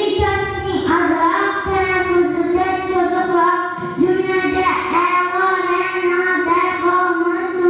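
A child singing a song in a high voice, holding long notes with short breaks between phrases.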